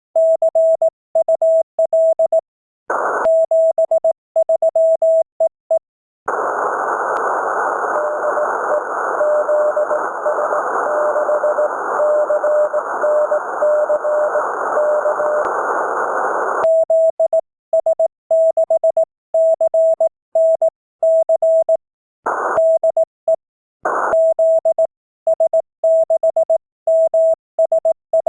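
Morse code (CW) from an amateur radio transceiver: a clean tone of about 650 Hz keyed in dots and dashes. From about six seconds in to about sixteen, the keying gives way to receiver hiss with a fainter Morse signal sending in it, and then the strong keyed tone resumes, broken by a few short bursts of hiss.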